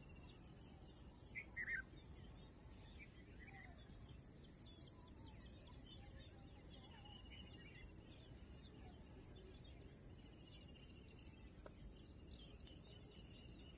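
Faint outdoor ambience: an insect trilling in a high, pulsing tone, with scattered short bird chirps. A single light click sounds near the end.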